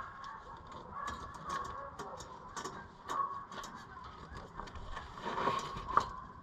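Scattered light metallic clicks and clinks of hand tools and engine parts being handled during a teardown, with a sharper knock about six seconds in.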